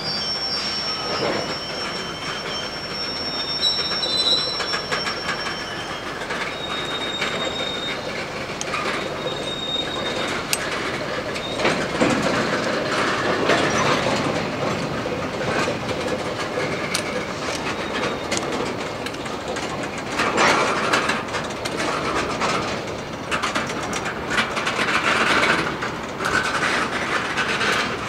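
Freight train cars rolling by on the rails: a steady rumble and clatter of steel wheels with scattered knocks, and thin high-pitched wheel squeals during roughly the first ten seconds.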